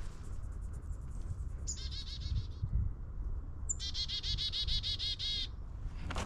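Black-capped chickadee calling twice, each call a brief high note followed by a quick run of buzzy repeated 'dee' notes; the second call is longer.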